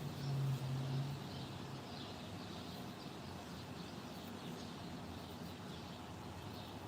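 Songbirds chirping and twittering faintly over steady outdoor background noise. A low, steady hum is loudest in about the first second, then fades.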